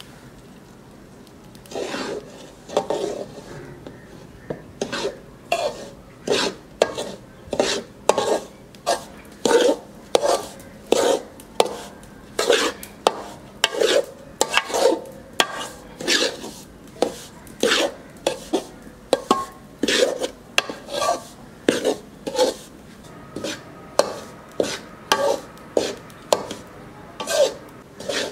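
Long-handled slotted metal spoon scraping and turning semolina against the bottom of a metal pan, in regular strokes about two a second, starting about two seconds in: semolina being roasted in ghee.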